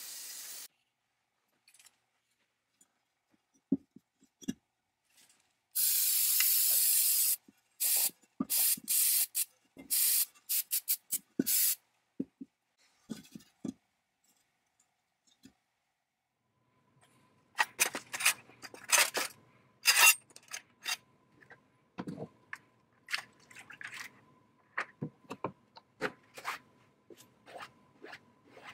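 Aerosol spray can hissing: one burst of about a second and a half, then a quick run of short squirts. This is followed by a long stretch of sharp clinks, taps and scrapes of metal parts being handled on a workbench.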